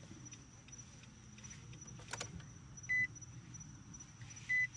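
Short, high electronic beeps, two of them about a second and a half apart in the second half, during the ignition-off wait step of car key programming. A single sharp click sounds about two seconds in.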